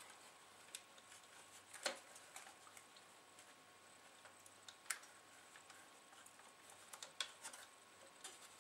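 Near silence, broken by a few faint, sharp clicks and taps as hands handle the plastic CD mechanism and its ribbon cable. The loudest click comes about two seconds in, and others come near the middle and near the end.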